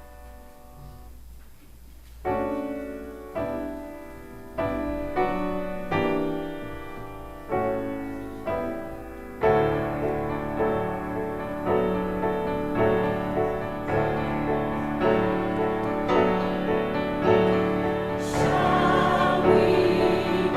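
Piano playing slow, struck chords as a hymn or anthem introduction, growing fuller about halfway through, with a choir starting to sing near the end.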